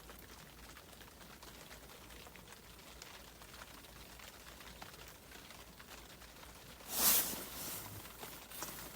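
Quiet, steady background hiss with a few faint ticks. About seven seconds in comes one brief, loud rustling burst of noise.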